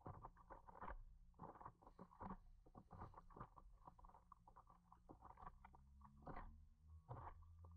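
Faint, irregular splashing and slapping of small waves against the nose of a moving paddleboard, with a steady low rumble underneath.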